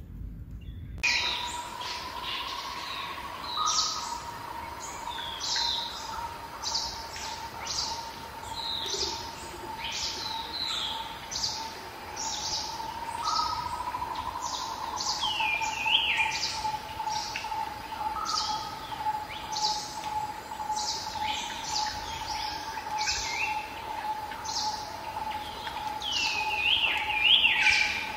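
Songbirds chirping: a stream of short, high chirps that fall in pitch, repeated every second or so, with a few quicker, lower twittering runs near the middle and near the end. A steady tone sounds underneath the whole time.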